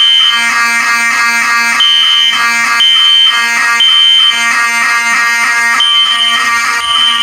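Fire alarm system in alarm: several horn and horn-strobe notification appliances (System Sensor P1224MC, Wheelock 7002T, Simplex 2098-9202) sounding loudly at once, their repeating patterns overlapping, with a high beep coming on and off.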